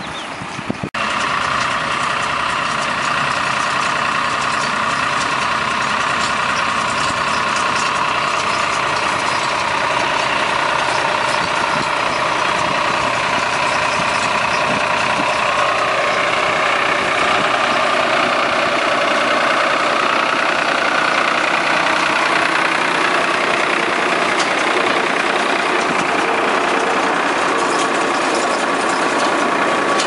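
Tractor-drawn paddy straw baler running steadily, engine and baling machinery together. A sharp click about a second in, after which the running noise is louder.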